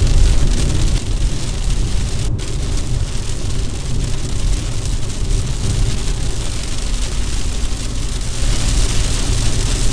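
Inside a car driving through heavy rain: rain hissing on the windshield and body over a steady low rumble of tyres and engine.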